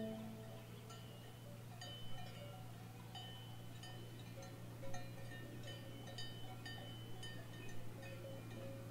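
Faint cowbells clanking irregularly, short ringing notes of several pitches, over a low steady hum.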